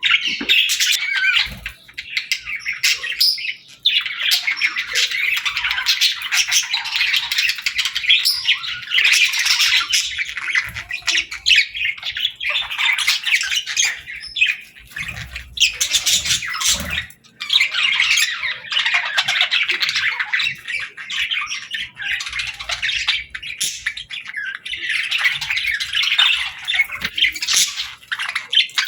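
Budgerigars chattering with a dense, continuous mix of chirps and squawks. There are brief lulls about four seconds in and again around seventeen seconds.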